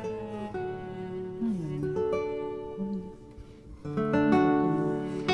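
Background music: a gentle acoustic guitar picking notes, thinning out briefly and then fuller again about four seconds in.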